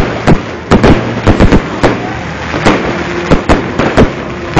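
Fireworks going off: an irregular, rapid string of sharp bangs and cracks, about three a second, some overlapping.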